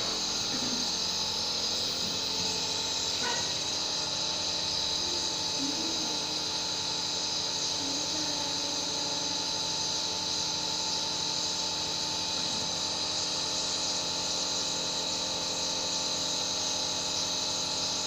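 Nebulizer compressor running steadily, a continuous hum with a strong hiss of the air and mist.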